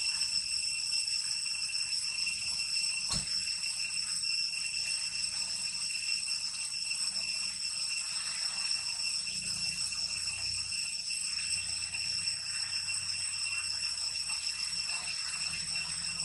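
Steady high-pitched insect chorus, a continuous shrill drone with no pauses. A single sharp click comes about three seconds in.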